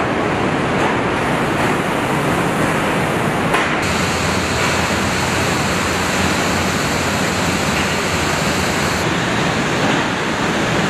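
Steady din of an automotive assembly plant: a dense, loud hiss over a low rumble, shifting slightly in tone about four seconds in and again near nine seconds.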